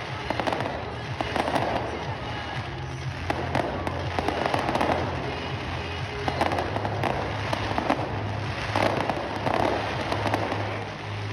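Fireworks display: repeated bangs and crackling throughout.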